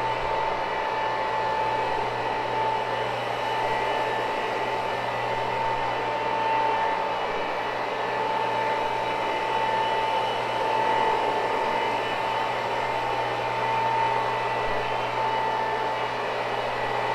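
Electric motor of carpet cleaning equipment running steadily: a constant hum with a steady high tone over it.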